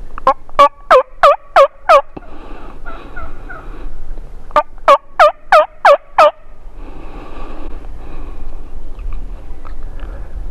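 Turkey yelps: two loud runs of about six evenly spaced notes each, one at the start and one about four and a half seconds in.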